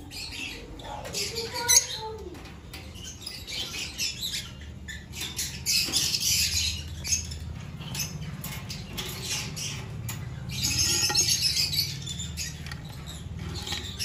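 Many caged lovebirds chirping and chattering in quick, overlapping calls, with a louder burst of chirping about ten seconds in. Light clicks and rattles of wire cage mesh are scattered through.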